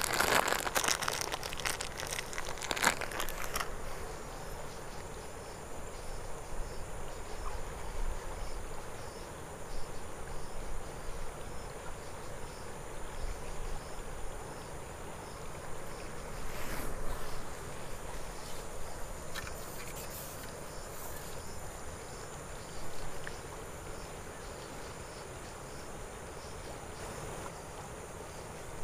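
Steady river-bank ambience: a flowing river with a faint, steady high insect buzz. There are crinkling, clicking handling noises for the first few seconds, then a few scattered small clicks.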